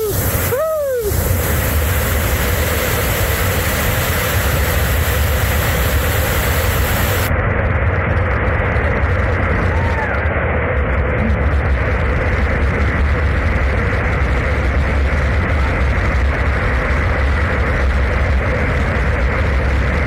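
Muthyaladhara waterfall, about 70 metres high, in heavy monsoon flow: a loud, steady rush of falling water, heaviest in the deep end.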